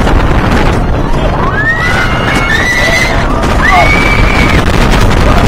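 Roller coaster riders screaming as the train drops: long, high screams that rise and are held, in two spells through the middle, over the constant rush of wind on the microphone and the rumble of the wooden coaster's train on its track.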